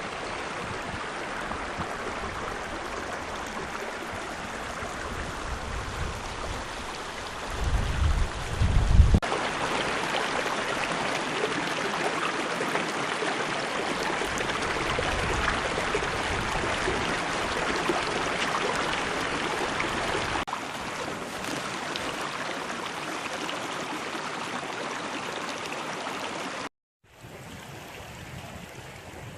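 River water flowing, a steady rush. A short burst of wind buffeting the microphone comes about eight seconds in. The sound cuts out briefly near the end and comes back quieter.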